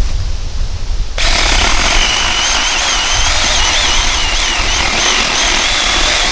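Saker electric mini chainsaw switching on about a second in and cutting through a small dead log, its motor whine wavering in pitch as the chain bites under load. Wind rumbles on the microphone before it starts.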